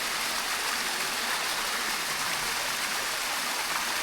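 Water of a waterfall rushing steadily over rock, an even wash with no breaks.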